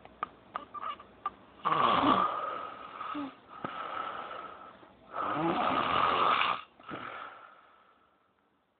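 A person snoring: a few short clicks, then two long snores about three seconds apart, each trailing off into softer breathing, and a pause near the end.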